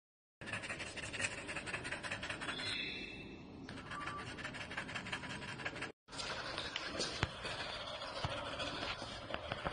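A dog's teeth gnawing and scraping on a rubber chew-stick toothbrush toy: a dense run of scratchy clicks and rasps that breaks off for a moment about six seconds in.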